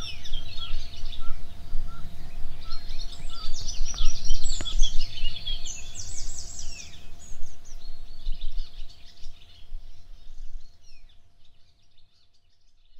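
Birds chirping and singing in a chorus over a low rumble and a faint steady hum, fading away near the end.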